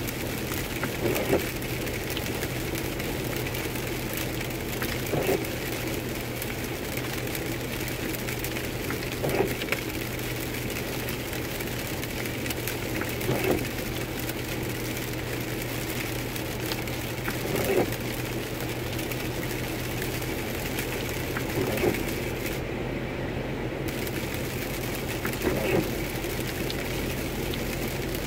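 Windshield wipers sweeping the rain-wet glass about every four seconds, each pass a short knock, over steady tyre and road noise on a wet highway heard inside the car.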